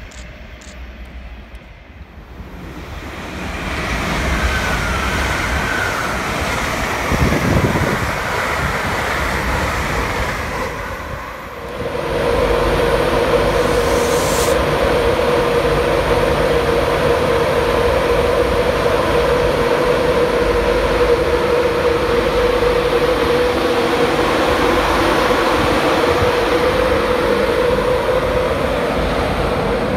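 Rail noise builds over the first few seconds. Then, from about twelve seconds in, an LNER Class 91 electric locomotive runs close by with a loud, steady electric whine that holds one pitch.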